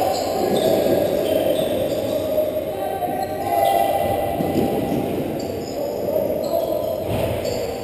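Box lacrosse game in an echoing arena: indistinct shouting and chatter from players and spectators, with the knocks of the ball and sticks on the concrete floor.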